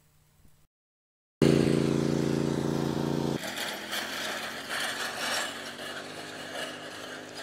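John Deere riding lawn mower's engine running as the mower tows a trailer cart. It cuts in loud about a second in, then drops to a quieter steady run over a rougher, clattery noise.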